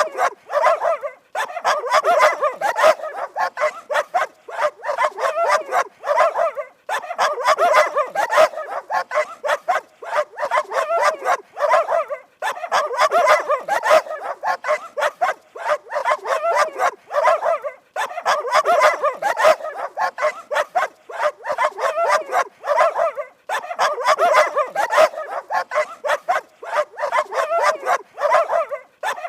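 Dogs barking rapidly and without letup, in runs of about five seconds with short breaks between them.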